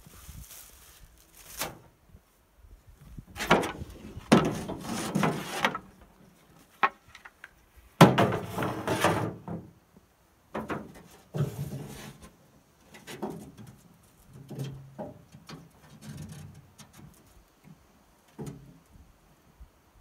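Paddles and gear being handled and set into a metal canoe: scattered knocks and clunks, the sharpest about eight seconds in, between stretches of rustling and scraping.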